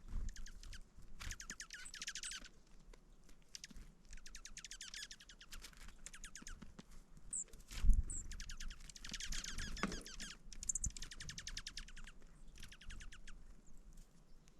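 Small songbirds trilling: repeated fast, high, rattling trills about a second long, with a few short high chips. A single dull thump about eight seconds in is the loudest sound.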